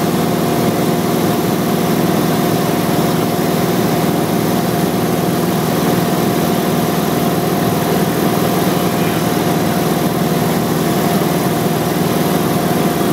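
Light aircraft's piston engine and propeller running steadily in cruise flight, a constant drone with an even whine.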